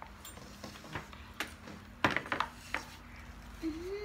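Spoons and forks clinking and scraping on plates, a few short sharp clicks with the loudest cluster about two seconds in. A short hum-like voice sound near the end.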